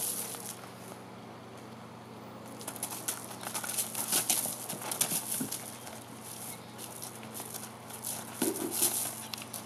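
Two donkeys' hooves scuffing and crunching on gravel as they play-fight, in bursts around 3 to 5 seconds in and again near the end.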